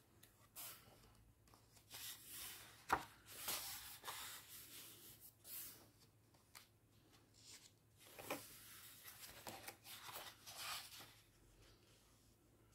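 Paper pages of a large colouring book being turned and smoothed by hand: faint rustling in two spells, with a sharp tap about three seconds in.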